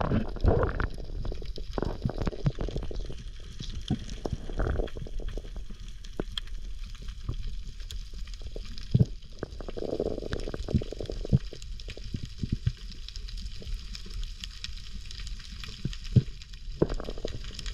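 Underwater reef ambience heard through a camera underwater: a steady crackling of many tiny clicks, typical of snapping shrimp on a coral reef, over a low rumble, with a few louder muffled swishes of water moving past the camera.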